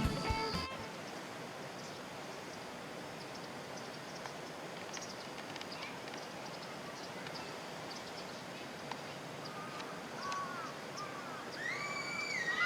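Steady outdoor ambience with a faint hiss and scattered small chirps, then a bird calling near the end in a few whistled notes that bend up and down in pitch.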